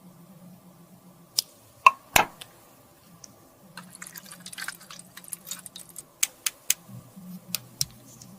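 Small hard objects clicking and tapping while cosmetics are handled. There are three sharp taps in the first half, then a few seconds of fine crackling rustle, then a quick run of five clicks near the end.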